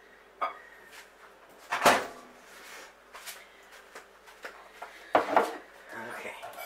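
A few sharp clunks and knocks of a microwave door and a mug being handled. The loudest comes about two seconds in, and two more follow close together about five seconds in.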